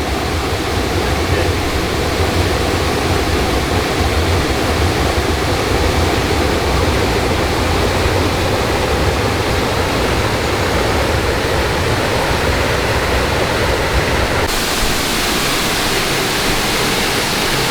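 Small woodland waterfall on a creek, water spilling and splashing in a steady rush. About three-quarters of the way through, the rush changes to a thinner, hissier sound with less low rumble.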